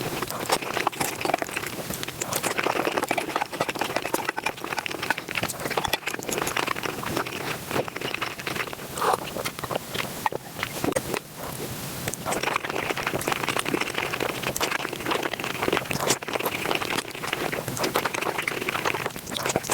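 Close-miked eating sounds played at five times speed: a dense, fast run of chewing, crunching and wet mouth clicks.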